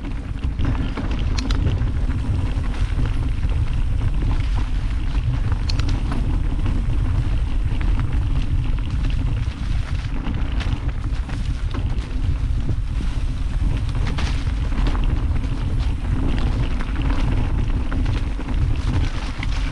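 Mountain bike rolling over a rocky trail: a steady low rumble of wind and tyres on the microphone, with scattered clicks and rattles from the bike and stones.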